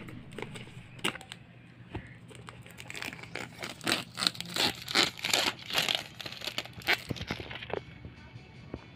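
Plastic shrink wrap on a cardboard box being cut with scissors, then crinkled and torn away by hand: a few scattered crackles at first, growing into dense, loud crinkling from about three seconds in that dies down near the end.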